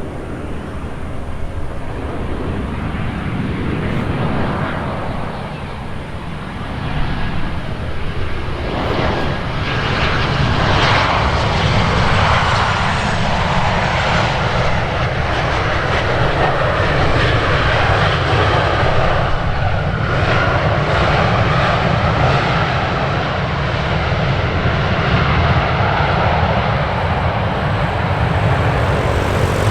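Airliner's jet engines running loud as the aircraft passes close on the runway. The sound swells about seven seconds in and stays loud.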